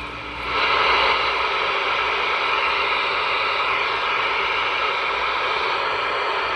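Galaxy DX-98VHP CB radio's speaker hissing with receiver static. The hiss comes up about half a second in and holds steady.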